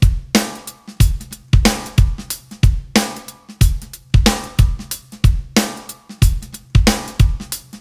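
Background music: a drum-kit beat of bass drum and snare with cymbals, hitting about twice a second over low bass notes.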